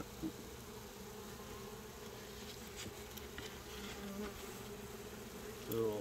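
Many honeybees buzzing in flight around an open hive, a steady hum.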